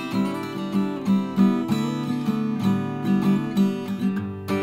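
A guitar piece played as background music: a steady run of plucked notes, about three a second, with a louder chord near the end.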